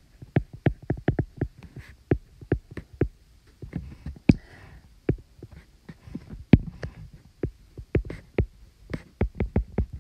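Apple Pencil tip tapping on an iPad's glass screen during handwriting: an irregular run of sharp little clicks, several a second, with short pauses between words.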